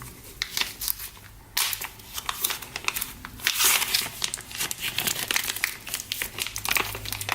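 Packaging crinkling and rustling as a watch bracelet is unwrapped by hand, a dense run of irregular crackles starting about a second and a half in.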